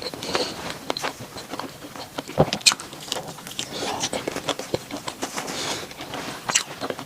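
Close-miked eating of bread: chewing and biting with irregular small clicks and crackles, and audible breathing.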